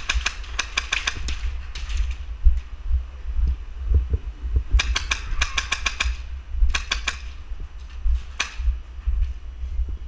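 Airsoft guns firing in bursts of rapid shots: one at the start, a longer burst about five seconds in, a short one about seven seconds in and a single shot near the end, over a steady low rumble with thumps.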